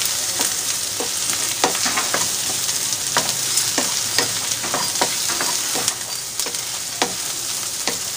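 Egg, carrot and capsicum stir-frying in oil with the just-added chilli sauce in a ceramic-coated kadai. It makes a steady sizzle that comes in suddenly at the start, with a wooden spatula scraping and tapping on the pan about twice a second.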